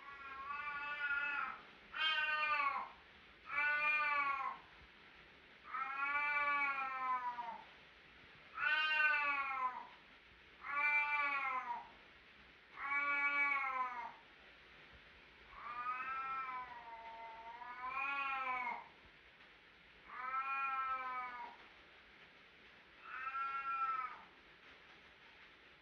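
Calico cat meowing over and over, about ten drawn-out meows a second or two apart, each rising then falling in pitch; one near the middle is longer, sagging in pitch before rising again.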